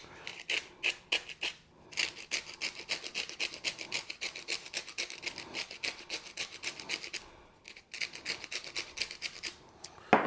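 Pepper grinder being twisted to crack fresh pepper, a quick run of rasping grinds, several a second, with a brief pause before a second run. A single sharp knock near the end is the loudest sound.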